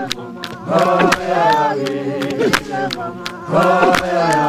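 A group of voices singing a traditional Mpondo song without instruments, in swelling phrases, over steady sharp handclaps about three a second.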